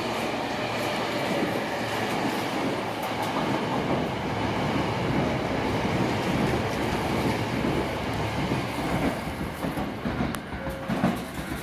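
A Hankyu Takarazuka Line electric train running along the track, a steady rumble that eases off about ten seconds in.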